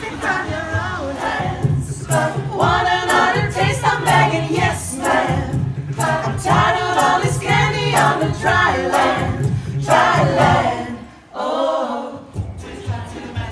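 Mixed a cappella vocal group singing a pop arrangement, women's voices leading over a sung low bass line. The low voices drop out for about a second near the end, then the singing goes on.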